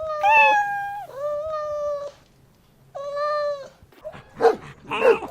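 Cat meowing: three long, drawn-out meows held at a fairly steady pitch. Near the end a dog starts barking in short, rough barks.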